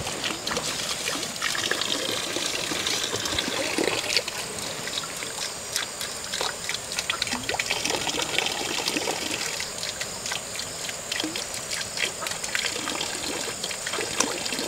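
Water trickling and lapping at a pond's edge, a steady wash of sound speckled with many small splashy clicks.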